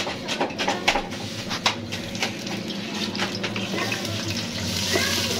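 Sharp clinks of a ladle and glass jar against a pressure cooker, then a steady sizzling that grows louder near the end as chopped onion is tipped into the hot oil.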